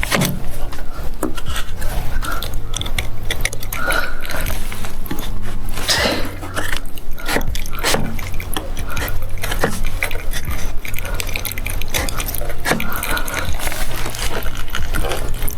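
Irregular clicks, knocks and scrapes of PVC irrigation pipe and connectors being handled and pushed together.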